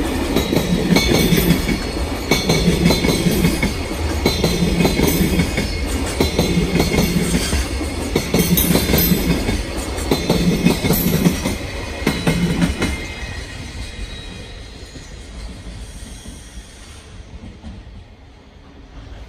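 Freight container wagons rolling past on the rails, their wheels clattering over rail joints in a rhythmic low rumble about once a second. The clatter dies away after about thirteen seconds.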